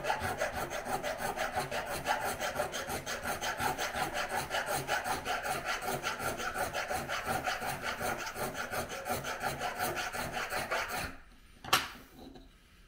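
Small hand file rasping back and forth across the base of a model railroad rail held in a wooden holder, quick even strokes about four a second, filing the rail base down so the guard rail sits lower. The filing stops about eleven seconds in, followed by a single click.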